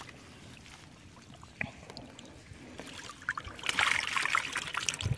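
Water trickling and splashing as a wire-mesh fish trap is lifted out of shallow water, starting a little over three seconds in, after a few faint clicks.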